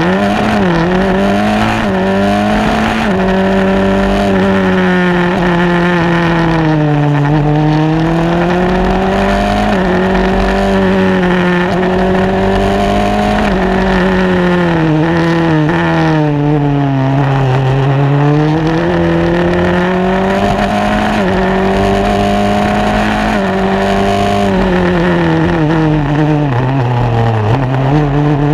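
Formula Renault single-seater's engine running hard, recorded onboard. The pitch climbs under acceleration and drops at each lift-off or downshift, over and over through the slalom.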